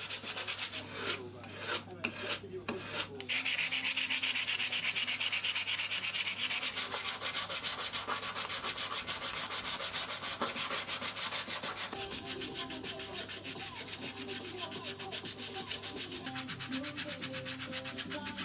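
Hand sanding a beech wooden spoon with 100-grit abrasive: rubbing strokes of abrasive on wood, uneven for the first few seconds, then quick and steady back and forth.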